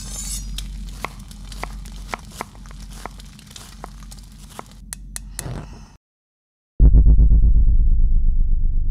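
Soundtrack effects: a low hum under scattered crackles and sharp clicks. These cut off about six seconds in, and after a brief silence a loud, fast-pulsing synthesizer bass starts.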